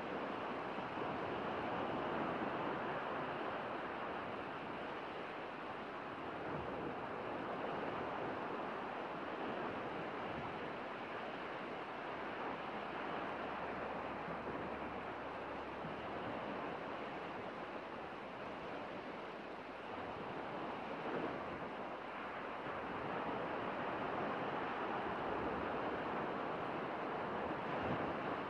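Steady rushing wash of sea surf on a sandy shore, rising and easing gently, with some wind.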